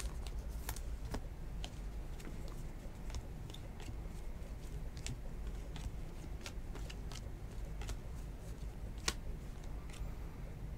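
A stack of 2019 Bowman baseball cards being flipped through by hand: scattered light clicks and snaps of card edges, with one sharper click near the end, over a low steady hum.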